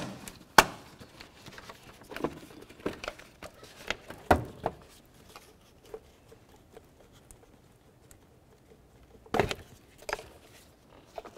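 Plastic air intake duct and rubber intake hose handled by gloved hands: a scatter of light clicks and knocks with some rustling, quiet for a few seconds in the middle, then a couple of louder knocks near the end.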